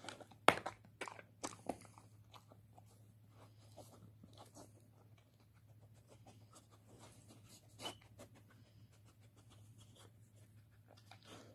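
A dog nosing a slide-puzzle treat toy, with sharp clicks and knocks as the toy and its slides shift, the loudest about half a second in and a cluster in the first two seconds, and crunching as it chews the dog-biscuit treats it finds.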